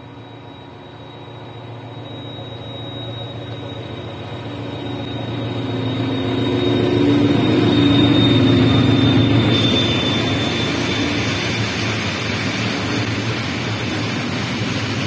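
SM42 diesel-electric shunting locomotive passing at close range as it hauls a train of loaded hopper wagons. Its diesel engine grows louder as it approaches and is loudest about eight seconds in. The rolling noise of the gravel-laden wagons follows.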